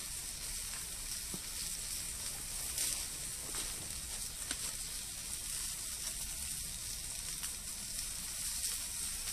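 Italian sausages sizzling steadily in a skillet, with a small pop now and then.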